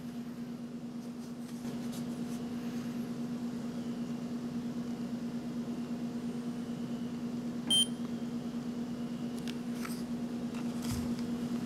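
A blood glucose meter gives one short, high beep about eight seconds in, over a steady low hum.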